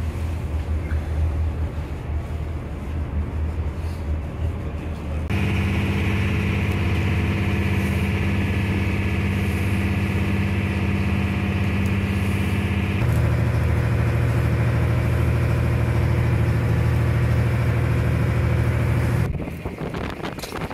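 A ferry's engine drones steadily in a low, even hum over a rush of wind and churning water. The drone's pitch and loudness jump abruptly twice, and it falls away near the end.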